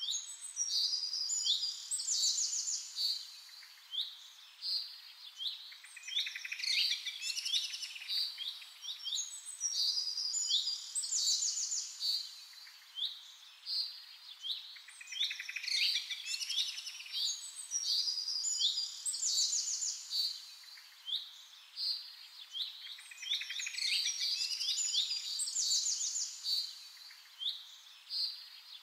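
Several songbirds chirping and singing continuously, a busy chorus of quick, high notes and short trills; the same stretch of birdsong repeats about every nine seconds.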